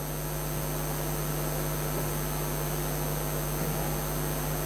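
Steady low electrical mains hum with a faint hiss from the hall's microphone and sound system, with no speech: room tone.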